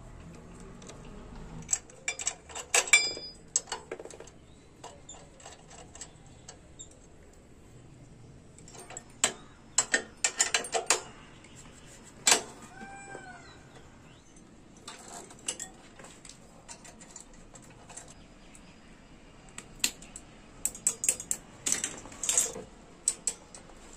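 Hand tools and steel moped parts clinking and clattering in scattered bursts, a screwdriver and a spanner knocking against brackets, nuts and chain during hand assembly of a TVS 50. A few short chirping calls come about halfway through.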